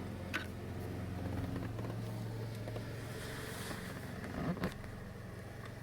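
Screws being driven into a plastic steering column trim cover: a click near the start and two sharper knocks about four and a half seconds in, over a steady low hum.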